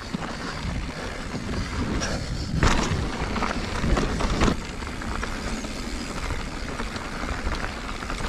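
Full-suspension mountain bike riding over a dirt and slickrock trail: steady wind rush on the helmet camera's microphone with tyre and drivetrain rattle, and a few sharp knocks as the bike hits bumps between about two and a half and four and a half seconds in.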